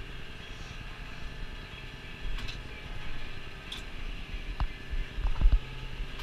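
New Holland tractor engine running steadily, heard from inside the cab. A few short knocks and thumps come about four and a half to five and a half seconds in, the last the loudest.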